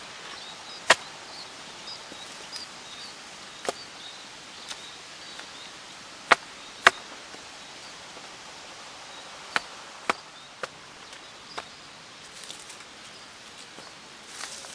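Sharp, irregular knocks or cracks, about nine spread through the stretch, the loudest pair about six and seven seconds in, over a steady outdoor hiss with faint high bird chirps near the start.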